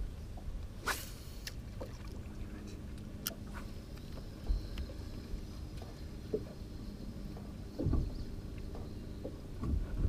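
Steady low rumble around a small fishing boat sitting on the water, with a few sharp clicks and several dull thumps on the hull or deck, the thumps strongest near the end.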